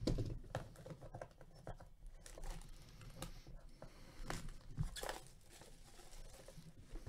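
Sealed trading-card hobby box being opened by gloved hands: irregular crinkling, scratching and tearing as fingers pick at and peel its wrapping, with light taps against the cardboard.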